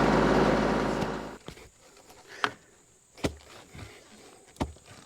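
Tractor engine running steadily for the post hole digger, cutting off abruptly a little over a second in. Then three sharp knocks, about a second apart.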